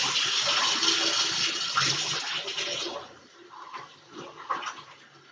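Kitchen tap running while hands are washed under it, shut off about three seconds in, followed by a few faint knocks.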